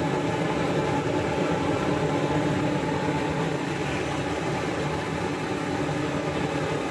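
A steady mechanical drone with hiss, unchanging throughout.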